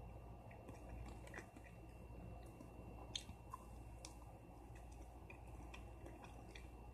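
A person faintly chewing and biting into a breaded fried chicken leg, with small wet mouth clicks and smacks and one sharper click about three seconds in. A low steady hum and a thin high whine sit underneath.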